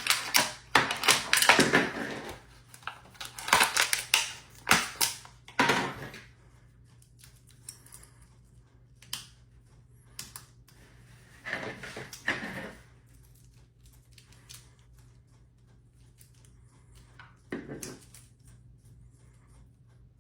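Toy packaging being opened by hand: plastic and cardboard crackling, tearing and clicking in dense bursts for the first six seconds, then scattered clicks with two short rustles, one about twelve seconds in and one near the end.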